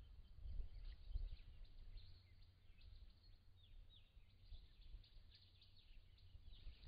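Faint, scattered short falling chirps of small birds over a low, uneven rumble.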